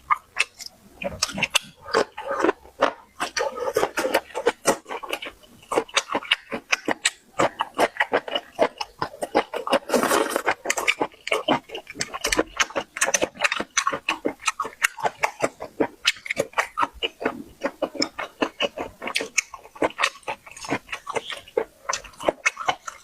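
A person eating close to the microphone: rapid, irregular chewing and lip-smacking clicks.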